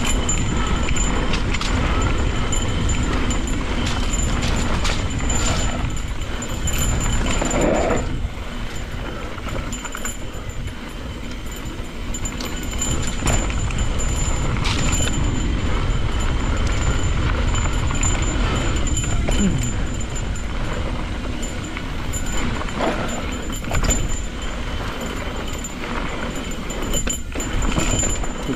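Cannondale Scalpel full-suspension mountain bike descending a dirt trail at speed: steady tyre and trail noise, with the bike clattering and knocking over bumps and wind rumbling on the microphone.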